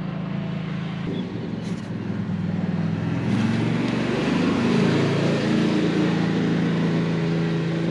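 Truck engine running under way, a steady pitched drone that shifts and gets louder about three seconds in, as if it is speeding up.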